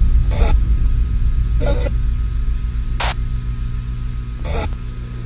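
Trailer soundtrack intro: a deep, steady low rumble slowly fading after a boom, with four short soft noise hits spaced over a second apart, the third one sharper.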